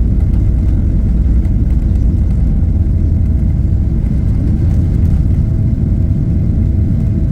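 Airplane taking off: a loud, steady, low engine rumble with a faint steady tone above it.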